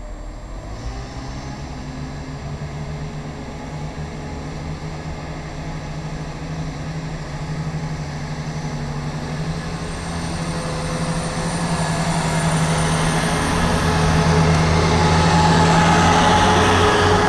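Chiltern Railways Class 168 diesel multiple unit moving off past the platform. Its underfloor diesel engines run with a steady drone that grows steadily louder as the carriages go by.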